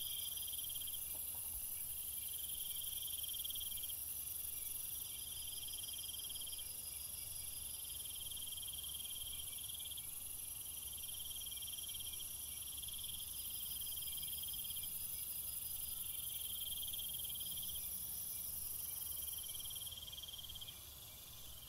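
Insects chirping: repeated pulsing trills, each a second or two long, coming about every two seconds, over a steady high hiss.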